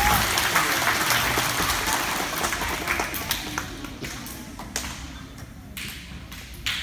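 An audience of schoolchildren applauding, the clapping dying away over the first few seconds and leaving a few scattered claps and knocks.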